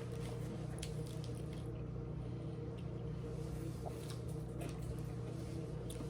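Person chewing a mouthful of sandwich: scattered wet mouth clicks and smacks over a steady low hum.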